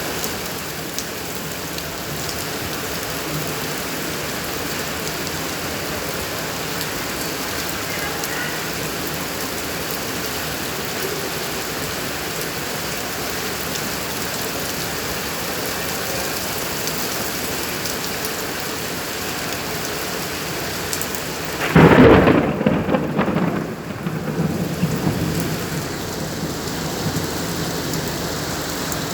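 Steady rain falling, with a sudden loud clap of thunder about three quarters of the way through that rumbles on for a few seconds before fading back under the rain.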